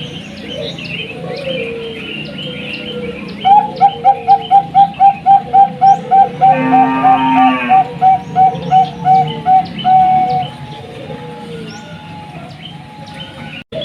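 Zebra dove (perkutut) giving a fast run of about twenty short cooing notes, roughly three a second, over a steady background of small birds chirping. Midway a brief, harsher buzzing call overlaps the coos.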